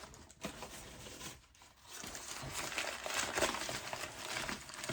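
Packing wrap crinkling and tearing as a wrapped crystal is unwrapped by hand, the crackling growing louder and denser about two seconds in.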